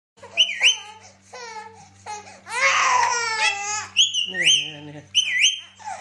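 Indian ringneck parakeet calling with short, sharp whistled notes that swoop up and down, a few times. Between them, about two and a half seconds in, comes a longer wailing, cry-like voice that lasts about a second.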